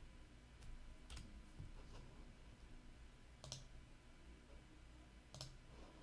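Three faint, separate clicks of a computer mouse over near silence: buttons being clicked in a software form.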